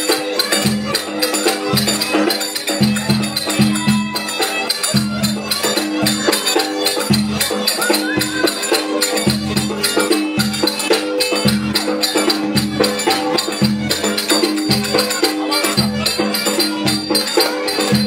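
Turkish folk dance tune (oyun havası) played live on violin and davul: the bowed violin carries a running melody over regular deep davul beats. A quick patter of sharp clicks rides on top.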